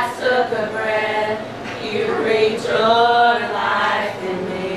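A small group of women singing together unaccompanied, in long held notes.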